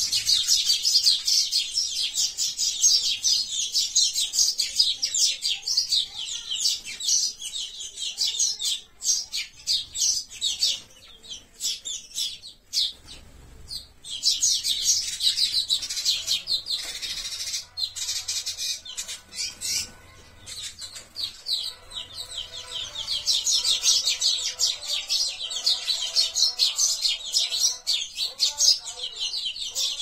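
Sparrows chirping rapidly and continuously in a squabble, the chirps thinning out for a few seconds about a third of the way through before picking up again.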